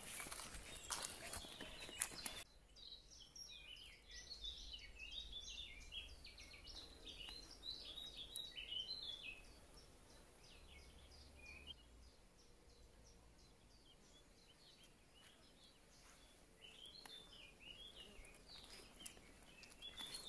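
Footsteps on a grassy woodland path for about the first two seconds, stopping suddenly. Then faint birds chirping and twittering in quick bursts, busiest in the first half, with a quieter spell before a few more calls near the end.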